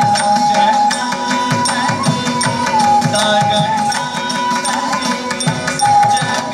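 Carnatic-style accompaniment music for a Mohiniyattam dance: a sustained melodic line with small glides over steady hand-drum strokes.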